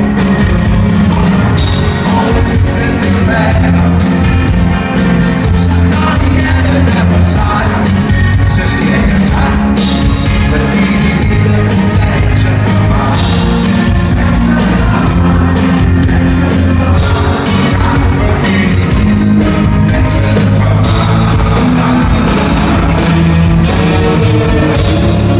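Live rock band playing loud through a concert-hall PA, with drums, electric bass, guitars and a lead vocal, heard from among the audience.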